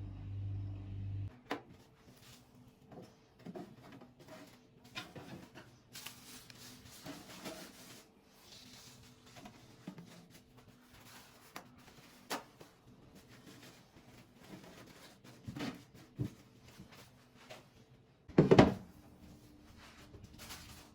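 Scattered light clicks, taps and rustles of household items and containers being handled, with one louder knock about eighteen seconds in. A low hum stops just over a second in.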